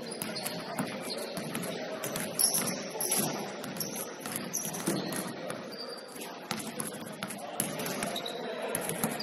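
Basketball game sounds on a gym court: the ball bouncing with irregular knocks, and brief high sneaker squeaks on the floor, over a background of players' voices.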